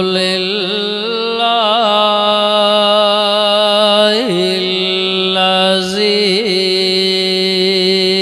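A man's voice chanting devotional verse over a loudspeaker system, drawing out long held notes with brief quavering ornaments, one short dip and rise about four seconds in.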